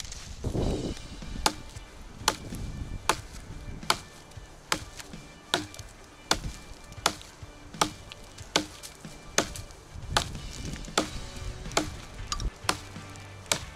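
Small axe chopping into a fallen birch branch: about sixteen sharp, evenly spaced blows, a little more than one a second, starting about a second and a half in.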